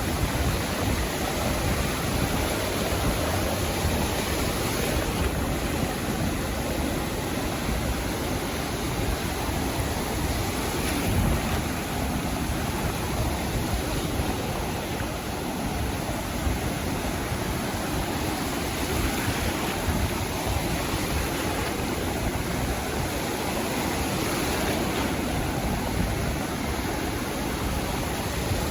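Sea waves washing up on a beach, a steady rush of surf with no distinct breaks.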